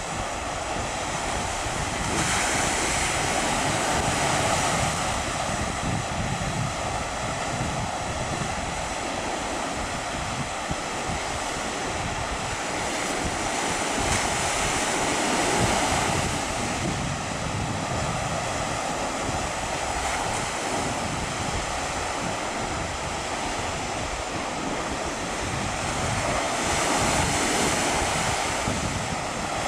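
Sea surf: a steady rush of waves washing in, swelling louder about every twelve seconds as larger waves break.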